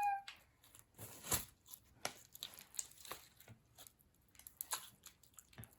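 Homemade slime with sequins and small plastic pieces being mixed by hand, giving faint, irregular sticky crackles and squelches.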